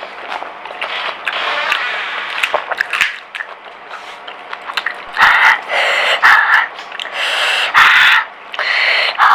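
Pani puri being eaten close to the microphone: the crisp puri shells crunch and are chewed with scattered clicks. Loud, short, noisy mouth sounds come several times in the second half.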